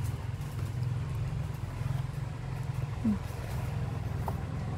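A steady low engine-like rumble, as of a vehicle idling. About three seconds in comes one short falling voice-like sound.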